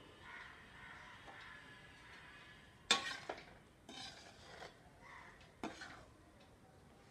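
Metal spatula scraping and clanking against a pan while ghee is stirred into roasted gram flour (besan) for laddus. Faint and soft at first, then a few sharp scrapes and knocks starting about three seconds in.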